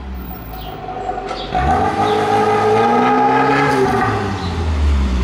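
Tofaş sedan's engine revving through an aftermarket sport exhaust as the car drives off. It gets loud about a second and a half in, and the exhaust note climbs in pitch, then drops back near the end.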